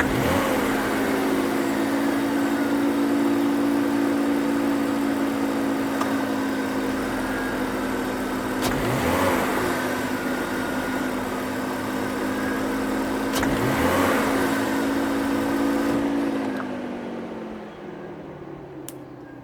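BMW M54B22 inline-six idling, snapped open by sharp throttle blips three times, each blip bringing a short knock that the owner likens to detonation, though no fault codes are stored. Near the end the engine sound winds down and fades.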